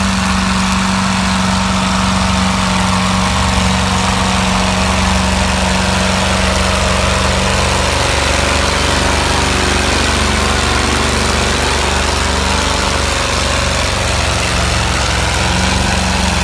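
Oliver pulling tractor's diesel engine running at a low, steady speed, its note shifting about eight seconds in.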